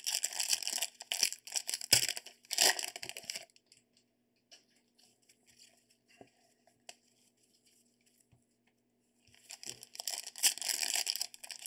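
Plastic wrapping on a trading-card box and pack crinkling and tearing as it is ripped open by hand, in two stretches: for about the first three seconds and again from near the end. Between them, only a few faint taps of cards being handled.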